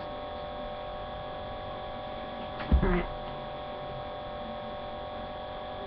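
Steady electrical hum made of several fixed tones, picked up by a webcam microphone. About three seconds in, a single sharp thump and a brief vocal sound cut through it.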